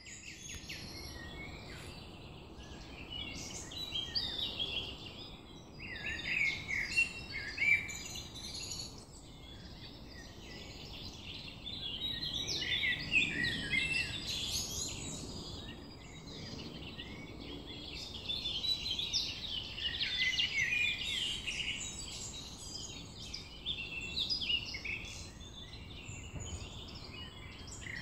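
Woodland birdsong: several birds singing at once, a dense chorus of short chirps and trills, over a steady low background hiss.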